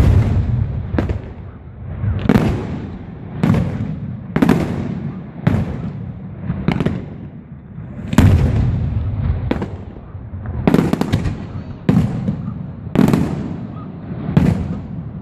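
Fireworks display: aerial shells bursting about once a second, each sharp bang followed by a low echo that dies away. Some bursts come in quick pairs.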